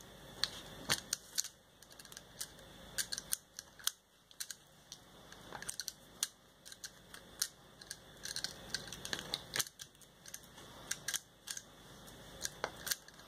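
Snap-off craft knife blade cutting paper: irregular short scratchy clicks as the blade is pushed through in small cuts.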